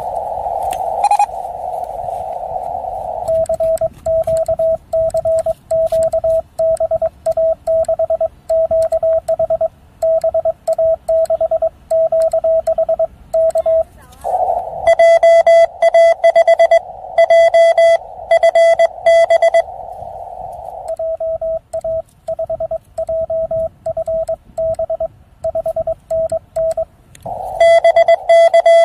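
Morse code (CW) from an amateur radio transceiver: a narrow band of hiss, then a single tone keyed on and off in dots and dashes. About halfway through, and again near the end, the tone comes louder and buzzier for several seconds.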